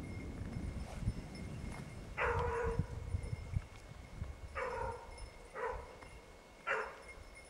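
Basset bleu de Gascogne hound baying on the scent of a rabbit: one longer cry about two seconds in, then three short cries.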